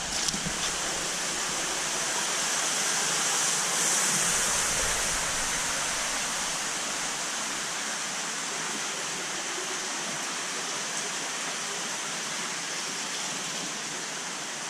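Steady rush of flowing water, swelling a little about four seconds in.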